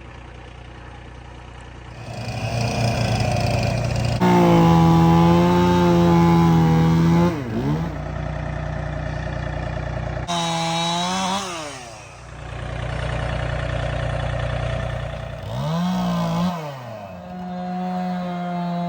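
Two-stroke chainsaw revved to full speed in several long pulls, its pitch sliding down as the throttle is released between them. A lower engine idles steadily underneath.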